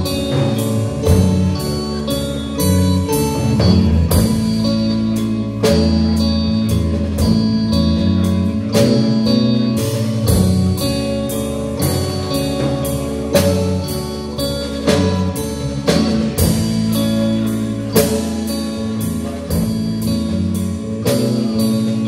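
Instrumental slowcore rock band playing live: electric bass, electric guitar and drum kit, with a steady drum beat under sustained bass and guitar notes.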